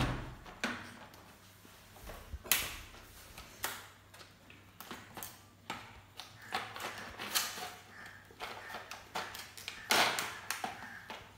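A kitchen knife scraping and cutting at a sheet of packaging: irregular scrapes, taps and clicks, loudest about two and a half seconds in and again near ten seconds.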